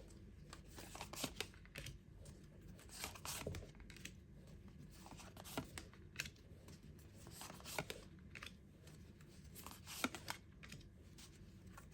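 Tarot cards being shuffled and laid out by hand: soft, scattered flicks and snaps of card stock at irregular intervals.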